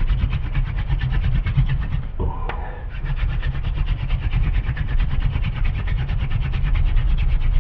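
Wooden hand-drill spindle spun hard between the palms on a hearth board in fast power strokes: an even, rapid rhythm of wood rubbing on wood, with a short break about two seconds in. This is the final push that heats the drill dust into a coal.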